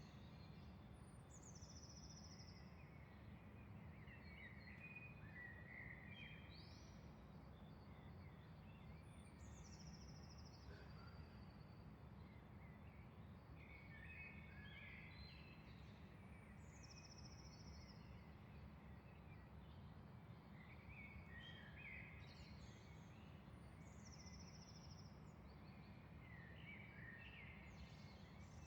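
Faint early-morning birdsong from several birds. One bird repeats a high, falling, trilled phrase about every seven or eight seconds, while others chirp and warble lower down, over a steady low rumble.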